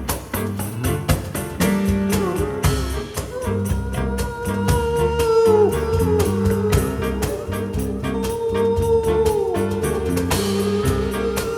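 Small acoustic jazz group with hand percussion playing live. A held melody line slides downward at the end of each phrase over steady percussion strikes and bass notes.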